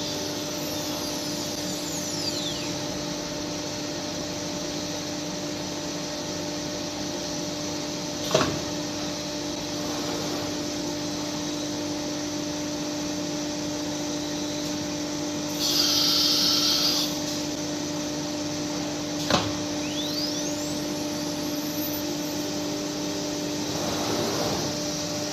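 CNC router running with a steady electric spindle whine over a broad machine hum. Two sharp clicks come about 8 and 19 seconds in, and a brief high hiss lasts about a second and a half around the middle.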